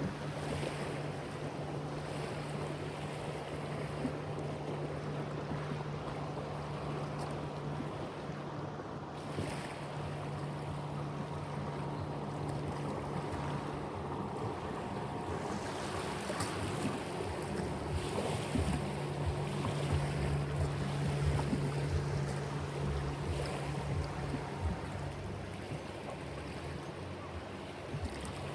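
River water lapping and washing, with wind gusting and buffeting the microphone, more so in the second half. A steady low hum runs underneath and drops out for a few seconds midway.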